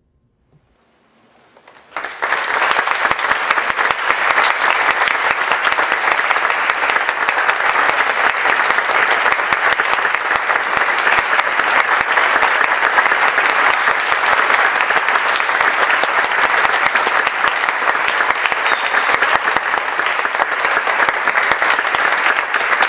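Near silence for about two seconds, then a concert audience breaks into applause that starts suddenly and continues steadily.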